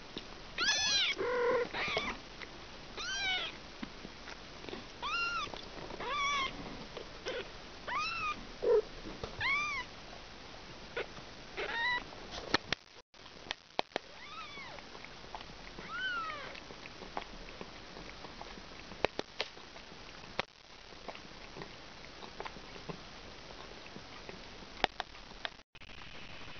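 Very young kitten mewing over and over: thin, high mews that each rise and fall in pitch, coming thickly for the first dozen seconds and then only once or twice more. A few faint, sharp clicks are scattered through the later part.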